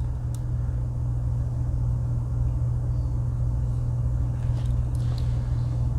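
Steady low background hum, with a few faint light clicks from the Swiss Army knife's sight adjustment tool being handled and opened.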